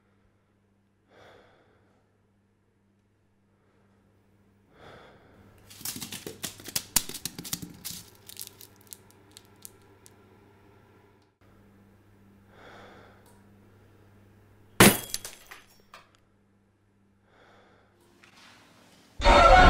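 Soft breaths, then about three seconds of dense crackling and clicking, a single sharp crack, and music starting at the very end, with a low steady hum underneath.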